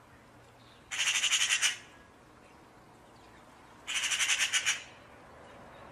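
Magpie chattering: two bursts of rapid, harsh rattling notes, about a second in and again about four seconds in, each lasting under a second.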